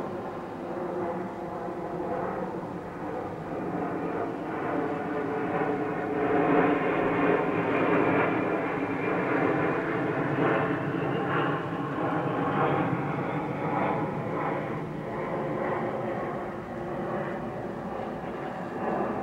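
Airplane passing overhead, its engine noise slowly swelling to a peak midway and fading away again.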